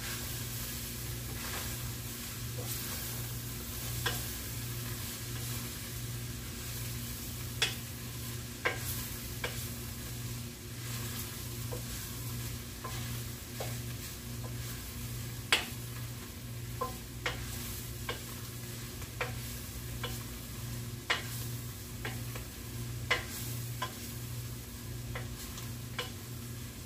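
Food sizzling in a stainless steel pot as a wooden spoon stirs it, with irregular knocks of the spoon against the side of the pot.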